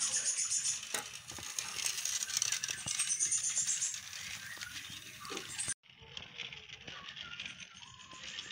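Battery-powered toy steam locomotive running on plastic track, its wheels and wagon making a dense clicking rattle. The sound drops out for a moment about six seconds in, then the rattle carries on.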